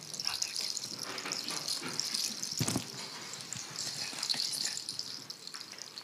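Conference-hall room noise while people move about on stage: faint murmuring voices, rustling and shuffling over a steady hiss, with a single knock about two and a half seconds in.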